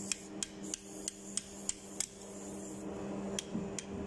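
Screwdriver tapping on the steel fittings of a globe valve: a run of sharp metallic clicks, about three a second for two seconds, then two more past three seconds in. A steady low hum runs underneath.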